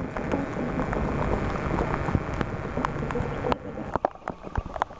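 Class 121 'bubble car' diesel railcar pulling away and receding, its engine and wheel rumble full of irregular sharp clicks. The rumble falls away about three and a half seconds in, leaving scattered sharp clicks.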